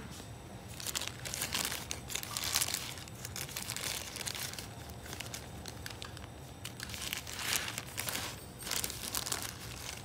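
Clear plastic bag crinkling in several irregular bouts as it is handled and opened.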